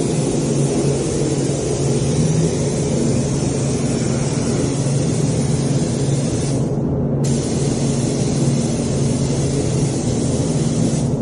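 Compressed-air spray gun hissing steadily as it sprays primer. The hiss cuts out briefly about two-thirds of the way through, then resumes, over a steady low hum.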